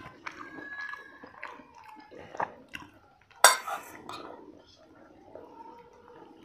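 Kitchen utensils clinking and knocking against pots and dishes, with one louder clash about three and a half seconds in.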